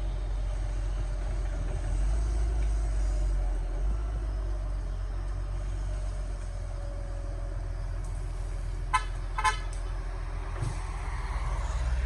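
Excavator's diesel engine running steadily at a low rumble, with two short horn toots about nine seconds in.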